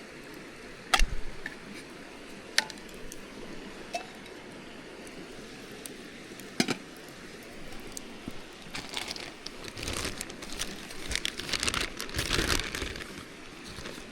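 Sharp clinks and knocks of handled gear, a few seconds apart, then several seconds of busy rustling and crinkling near the end.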